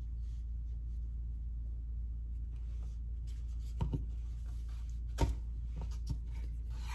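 Spreading icing onto cupcakes by hand: light scraping and a few soft clicks, the sharpest two about four and five seconds in, over a steady low hum.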